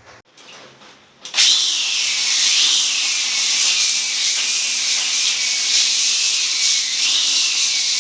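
A handheld electric polisher starts about a second and a half in and runs steadily, grinding across marble with a slightly wavering whine under load.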